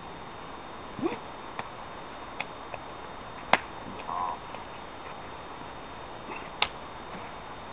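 A few sharp, irregular taps and knocks of a boulderer's hands and climbing shoes on the sandstone rock as he moves through the start of the problem, the loudest about three and a half seconds in, over a steady hiss.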